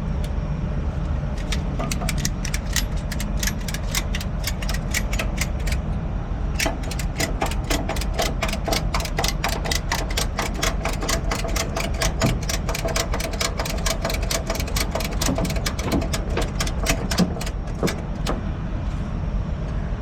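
A truck engine running steadily under rapid, evenly spaced mechanical clicking at about five clicks a second. The clicking comes in two long runs, pausing briefly about six seconds in and stopping near the end.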